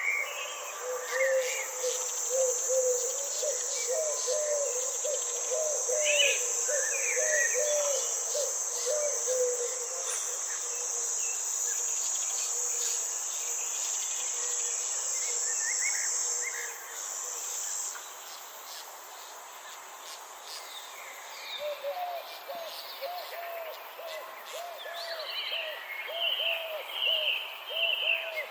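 Garden ambience: a steady high insect trill, cricket-like, that stops about two-thirds of the way through, with scattered bird chirps over it. A low, quick run of repeated call notes sounds for the first several seconds and again near the end.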